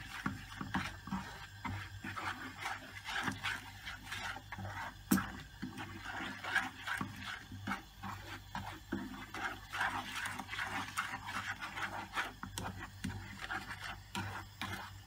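Wooden spoon stirring and scraping melting sugar around a nonstick frying pan as it turns to caramel: a quick, irregular run of scrapes and light knocks over a low steady hum.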